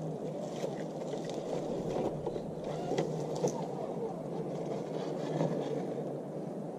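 Redcat Gen8 RC scale crawler's motor and gear drivetrain whirring steadily as it crawls, with scattered small clicks and scrapes from the tyres and chassis on the terrain.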